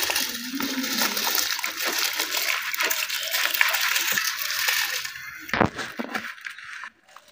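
Rice poured from a plastic bowl into a large pot of boiling water: a steady rushing splash for about five seconds, then a couple of sharp knocks as the last grains are scraped from the bowl.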